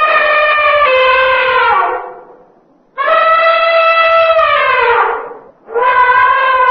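Elephant moaning calls, three of them: a long call already under way that slides down in pitch and fades about two seconds in, a second from about three seconds in that also falls at its end, and a third starting near the end.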